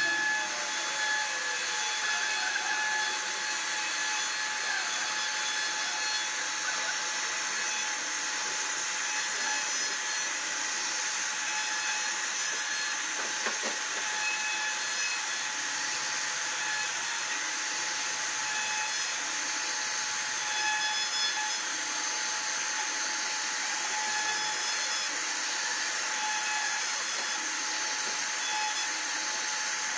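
CNC wood router spindle running at high speed while its bit carves a relief pattern into a hardwood panel: a steady high-pitched whine over the hiss of the cut.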